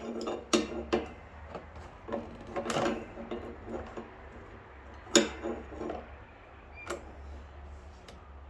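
Small lawn mower carburettor parts being handled and fitted back together by hand: a string of short clicks and knocks, the loudest about five seconds in.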